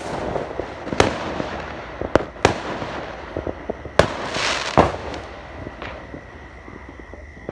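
Fireworks going off: a handful of sharp bangs over continuous crackling, dying down over the last couple of seconds.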